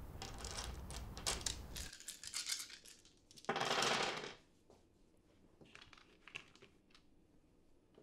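Cards and small game pieces handled on a table: light clicks and rustles, with one louder rustling rattle lasting almost a second about three and a half seconds in. Before that, a steady low background noise cuts off about two seconds in.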